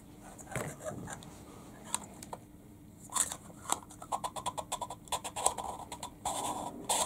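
Hard plastic toy capsule being handled and pressed between the hands: scattered light clicks and scrapes, then a quick run of small clicks about four seconds in.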